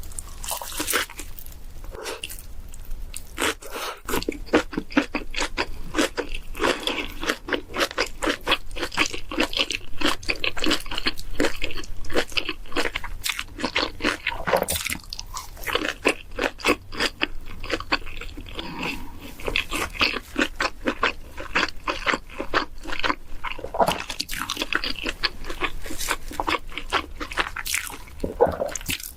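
Close-miked eating: a person biting and chewing crunchy food, with many sharp crunches coming close together.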